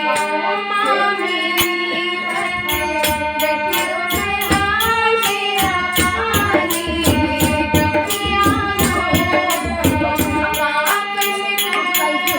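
Hindi devotional bhajan to the Mother goddess: a melody with singing over a steady percussion beat.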